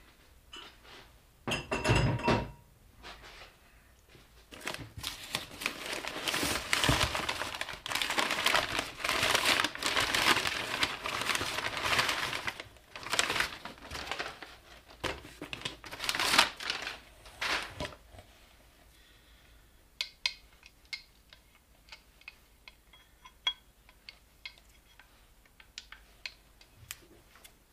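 Steel traction bars clank once with a short ring as they are set down. Then comes a long stretch of kraft packing paper rustling and crumpling as a bracket is unwrapped, followed by scattered light clicks of the metal bracket and bolt being handled.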